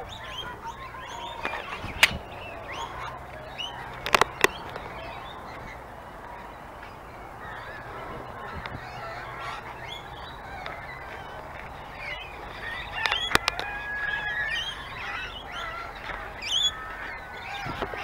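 Many birds calling at once, a steady mixed chorus of short calls. A few sharp knocks stand out above it, one about two seconds in, a quick pair around four seconds, and another pair past the middle.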